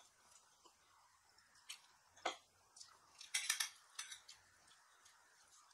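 Close-miked eating of fried chicken: a few scattered mouth clicks and smacks, with a short run of crunchy bites about three and a half seconds in.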